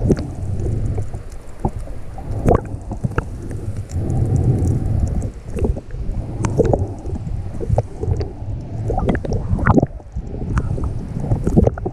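Muffled underwater sound picked up by a GoPro on a full-face snorkel mask: a low rumbling water wash that swells every few seconds with the snorkeler's breathing, with scattered sharp clicks and crackles.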